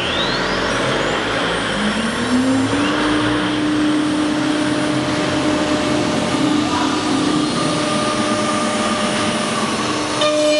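ATC CNC router's spindle cutting a wooden sheet: a steady whine over cutting and machine noise, with a hum that rises in pitch about two seconds in and then holds steady. Just before the end the sound changes abruptly, and several steady tones come in.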